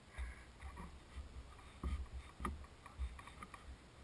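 Wind buffeting the camera microphone in low, irregular rumbling gusts, with a couple of faint knocks about two seconds in.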